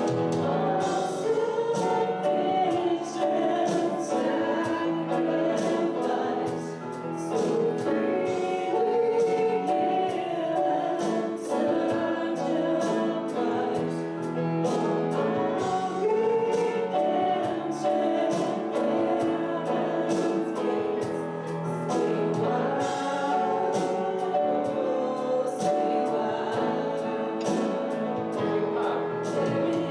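Group of voices singing a gospel hymn together, with instrumental accompaniment keeping a steady beat.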